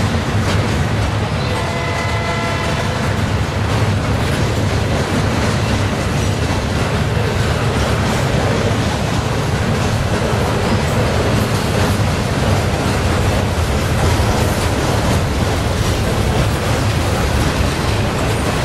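Freight train rolling past, a steady loud rumble of steel wheels on rail as coil cars and double-stack container cars go by. A brief pitched tone sounds about two seconds in.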